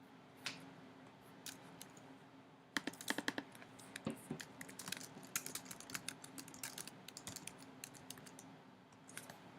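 Typing on a computer keyboard: a few single key clicks, then a quick, irregular run of key strokes from about three seconds in, lasting several seconds.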